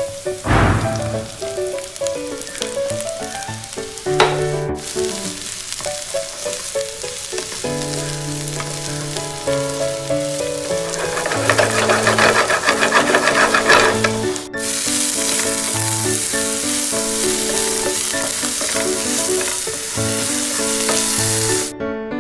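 Sliced button mushrooms and chopped vegetables sizzling in hot oil in a nonstick frying pan. There is a burst as the mushrooms are tipped in about half a second in, and spatula stirring and scraping around twelve seconds in. The sizzle cuts off suddenly near the end.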